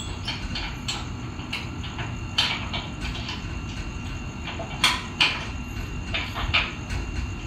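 Steel sliding gate being worked by hand: metal rattling and scraping, with a few sharper clanks about two and a half, five and six and a half seconds in.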